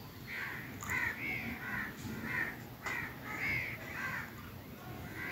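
Birds calling: a string of short, arched, repeated calls, about two a second.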